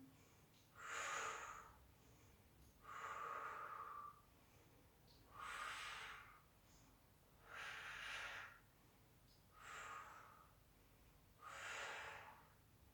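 A woman's slow, audible breathing while she holds a strenuous backbend: six soft breaths, one about every two seconds.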